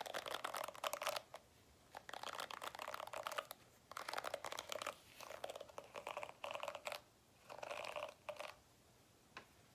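Bristles of a detangling brush being stroked close to the microphone, making a fine, crackly scratching in about six separate strokes of roughly a second each, with short pauses between.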